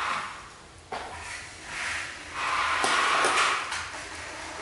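Close rustling and rubbing of cloth and fur as a baby monkey's shirt is adjusted and it is groomed, coming in several swells with a few small clicks in the loudest one, near the end.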